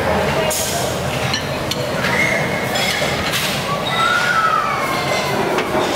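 Bustle of a busy noodle soup shop: dishes and utensils clinking now and then over a steady din of background chatter and traffic.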